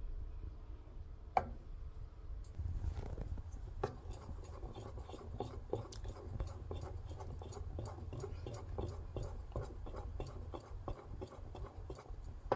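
A spoon stirring thick, milky fudge mixture in a stainless steel pan: quick repeated scrapes and clicks of the spoon against the pan, several a second, from about three seconds in, over a low rumble.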